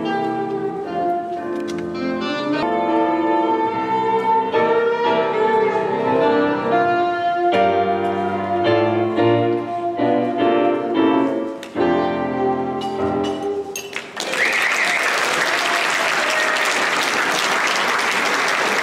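Live instrumental music with a grand piano plays and ends about fourteen seconds in, followed by audience applause.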